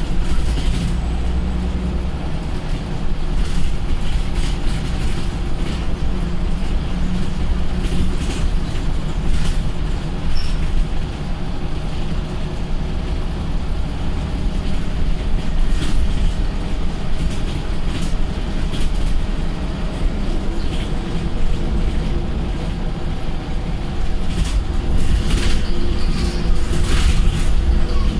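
Scania single-deck bus heard from inside the saloon while driving: a steady engine drone over a heavy road rumble, with occasional short knocks and rattles from the body.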